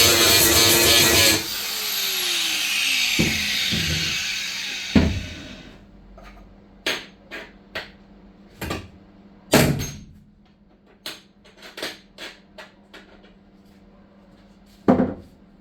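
A power tool running loud, switched off about a second and a half in and winding down with a falling whine over a few seconds. Then about a dozen sharp metallic knocks and taps from tools being handled and struck.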